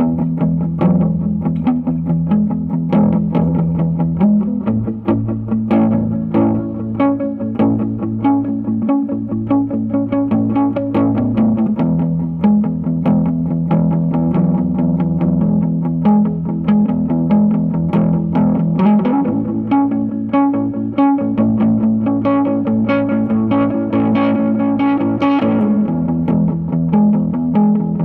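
Ibanez AS73 hollow-body electric guitar played through a Vox AC30C2 valve amp, picking a repeating chord progression whose bass note shifts about every seven seconds.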